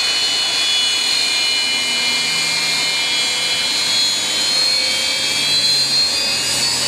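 Twin Progress D-436TP turbofan engines of a Beriev Be-200 amphibious aircraft on a low pass: steady jet noise with high whining tones that slowly fall in pitch as the plane goes by.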